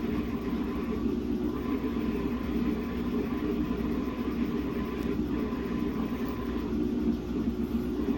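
Samsung WA50R5200AW top-load washing machine running, a steady mechanical hum from its motor and drum while it washes a single, badly unbalanced pair of pants.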